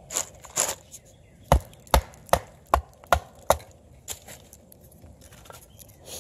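Knife splitting a stick of wood against a log: six sharp chopping knocks about 0.4 s apart, preceded by two softer, hissier strokes, then a few faint ticks.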